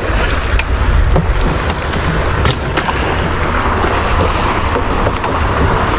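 Steady wind and sea noise on a small fishing boat at sea, with a few short clicks and knocks.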